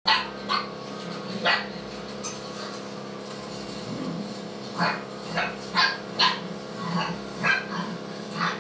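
Dogs barking in short, separate barks: three in the first second and a half, then a quicker run of about seven from about five seconds in.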